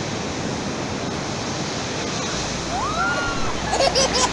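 Ocean surf washing up a sandy beach, a steady rush of breaking waves.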